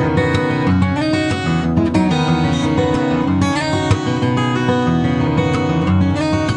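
Instrumental background music led by strummed and plucked guitar, playing at a steady level.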